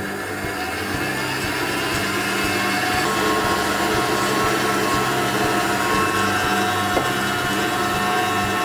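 Electric stand mixer running steadily at speed, its whisk beating egg whites into meringue as sugar is added bit by bit. The motor's whine rises a little in pitch over the first few seconds and then holds.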